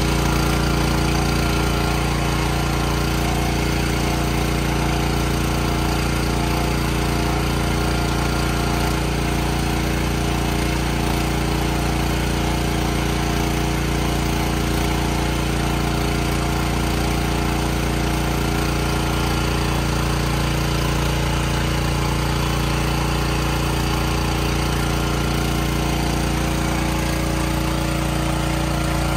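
A machine running at a steady speed: a continuous drone with a fast, regular low pulse and several steady humming tones.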